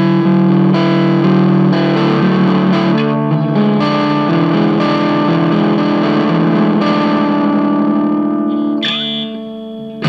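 Electric guitar played through a Stewmac Sun Fuzz (Fuzz Face-style) pedal fitted with a 3BX81B germanium NPN transistor, fuzz at 3 o'clock and bias at 12, giving a distorted fuzz tone. Sustained chords ring out one after another, and the playing eases off about nine seconds in.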